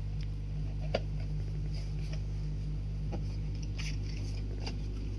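Small items being handled by hand: a sharp click about a second in, then scattered light clicks and rustles, over a steady low hum.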